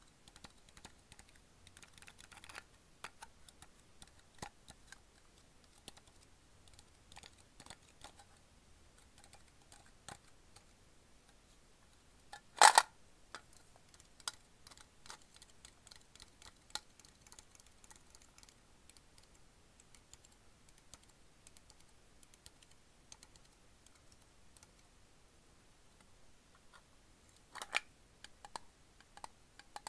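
Fingertips and nails tapping and handling a Sakuma Drops steel candy tin, giving light, scattered clicks. About twelve seconds in there is one much louder short clatter, and a smaller cluster of taps comes near the end.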